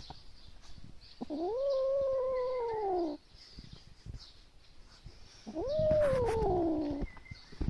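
Tabby kitten growling and yowling with a crucian carp held in its mouth: two drawn-out yowls of about two seconds each, each rising and then sliding down in pitch. It is a cat guarding its prey in anger, warning others off.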